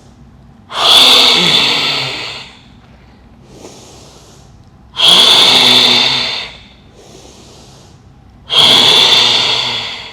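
Lion breathing (Simhasana breath): three forceful exhalations through the wide-open mouth with the tongue stretched out, each a harsh throat sound, not voiced, lasting about two seconds and fading, about four seconds apart. Quieter inhalations through the nose come between them.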